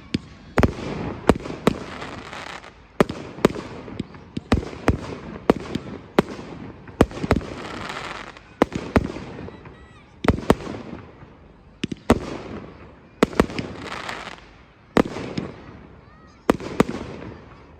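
Aerial fireworks bursting one after another: a sharp bang every second or so, sometimes two close together, each trailing off in a fading tail.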